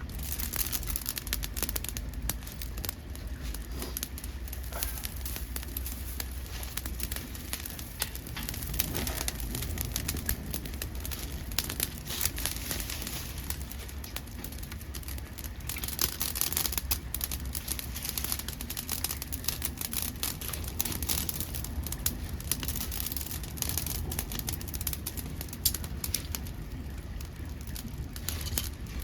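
Wood fire crackling with many small pops as dead podocarpus wood burns in a homemade pail-can secondary-combustion wood-gas stove. The crackling thickens in spells, over a low steady rumble.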